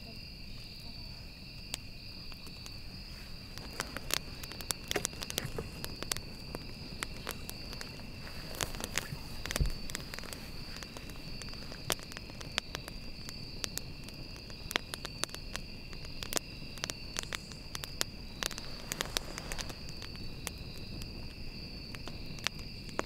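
Wood campfire crackling, with sharp irregular pops and snaps, over a steady high-pitched trilling of night insects.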